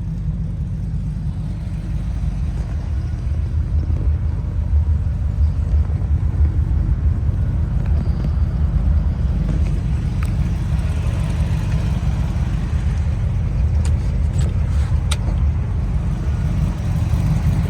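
Low, steady rumble of a 350 crate V8 idling, with a few faint clicks late on.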